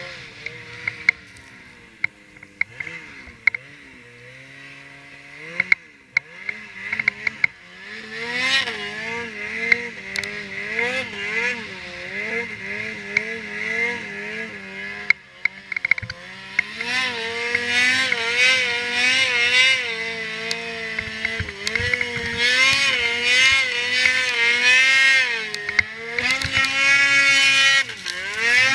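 Ski-Doo Freeride 800's two-stroke twin engine revving up and down as the snowmobile rides through snow, the pitch rising and falling constantly with the throttle. It is quieter with a few sharp ticks in the first several seconds, then louder, loudest near the end.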